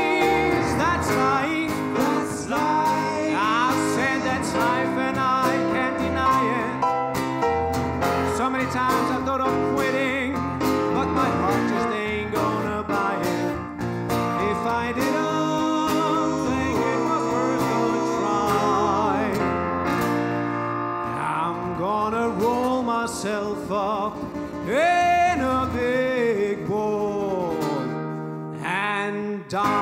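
Live band of grand piano, acoustic guitar and drums playing, with a male singer's voice over it at times and no clear words.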